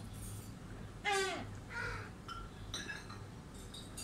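A gull on the windowsill gives one loud call that falls in pitch about a second in, followed by a shorter second call. Several light clinks follow near the end.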